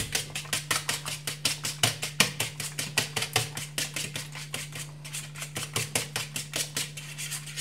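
Fork beating two raw eggs in a shallow ceramic bowl, clicking against the bowl in a quick, steady rhythm of about six strokes a second.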